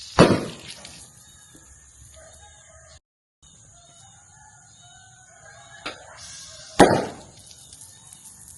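Two sharp firecracker bangs from Happy Boom Mancis BiBi match crackers, one just after the start and one about six and a half seconds later, each dying away quickly. A rooster crows in the background.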